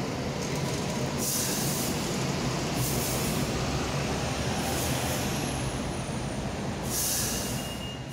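Hong Kong MTR Light Rail vehicles standing at a platform with their equipment running: a steady low rumble, broken by four short hisses of air a second or two apart.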